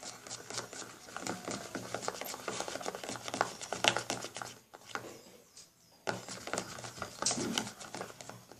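A spoon stirring and scraping through wet slime mix of white glue, shaving foam and borax activator in a pot: dense scraping with small sticky clicks, pausing briefly in the middle. The activator has just gone in and the mix has not yet thickened.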